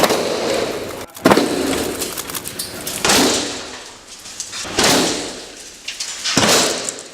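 Synthetic cricket-ball-sized hailstones smashing into a VELUX double-glazed skylight: five heavy impacts about one and a half to two seconds apart, each dying away quickly. The glass takes the hits without damage.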